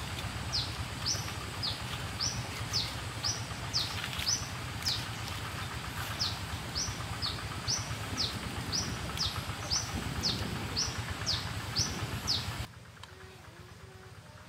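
A bird repeating a short, high, downward-sliding call about twice a second over a steady low background noise. Near the end the sound drops suddenly to a much quieter background.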